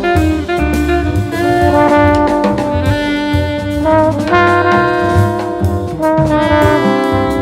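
Jazz ensemble playing, with brass horns including trombone holding sustained chord lines over a drum kit.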